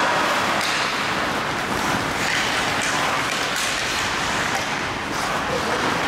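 Crowd noise at an ice hockey game: many spectators' voices blending into a steady din.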